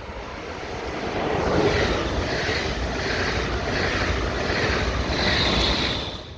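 Train passing at speed: a noisy rush with low rumble that swells over the first two seconds, with a regular pulsing as the cars go by, then cuts off suddenly at the end.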